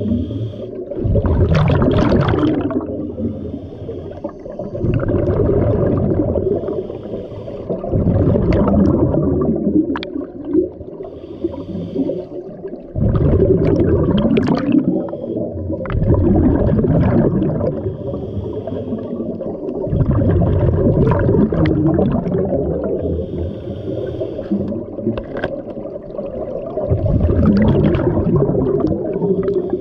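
Scuba diver breathing on a regulator underwater: exhaled bubbles rumble out in loud bursts every few seconds, with quieter stretches between breaths.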